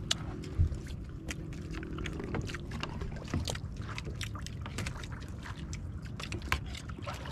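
Scattered light clicks and clinks of utensils and dishes during a meal on a boat at sea, over a steady low rumble of wind and water, with a few dull thumps.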